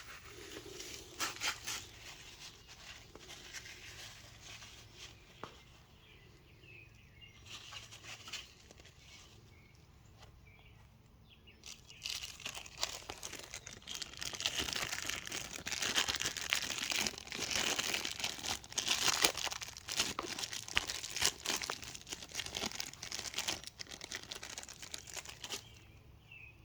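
Close handling sounds of the oil drain plug being cleaned: a few light clicks at first, then from about halfway a denser, irregular rustling and rubbing, as of a rag wiping the plug.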